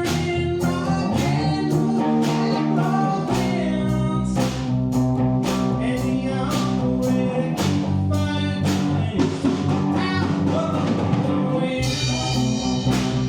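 A blues-rock song with a singing voice, guitar and a steady drum beat.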